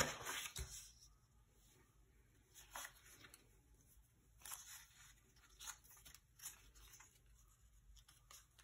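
Paper rustling and crinkling in short, faint bursts as cut paper petals are handled and laid on a sheet of paper, with a louder brush of a paper sheet being set down on the desk at the very start.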